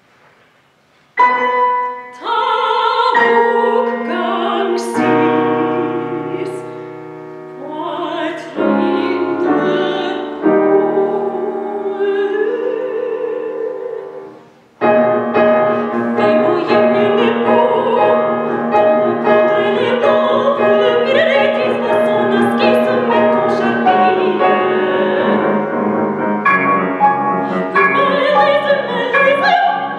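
Classical soprano singing with grand piano accompaniment, starting about a second in after a short silence. The music breaks off briefly about halfway through, then comes back fuller and louder.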